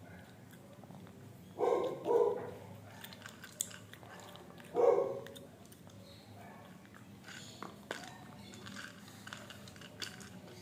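Small dog giving short barks, two in quick succession about two seconds in and one more near five seconds, then chewing and crunching a treat taken from a hand, heard as soft scattered clicks.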